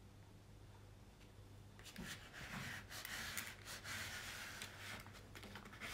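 Faint hum at first, then from about two seconds in, rustling, crinkling and light scraping as a diamond-painting canvas and its packaging are handled.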